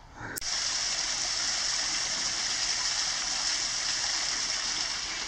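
Running water rushing steadily, a stream or small fall in the bush, cutting in abruptly about half a second in.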